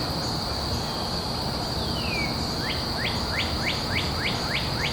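Outdoor ambience: a steady high-pitched insect trill over a low background hiss, with a bird giving a quick falling call about two seconds in and then a series of short rising chirps, about three a second, through the second half.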